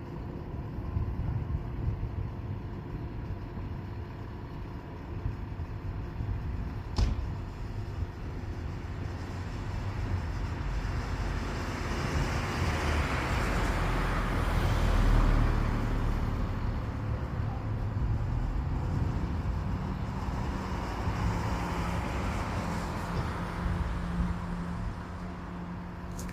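Road traffic going by over a steady low rumble: one vehicle swells past and fades about halfway through, and another passes near the end. A single sharp click comes about seven seconds in.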